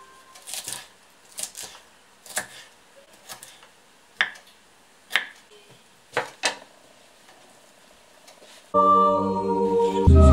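A knife chopping cabbage leaves on a wooden cutting board: about ten sharp, irregularly spaced cuts. Music comes in near the end.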